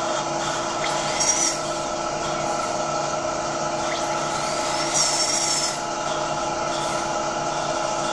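Dental suction and equipment running with a steady hum, broken by two short high-pitched whines, about a second in and again around five seconds.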